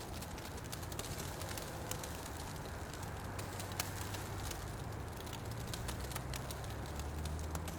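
Fire burning in a fireplace: frequent sharp crackles and pops over a steady low rumble of the flames.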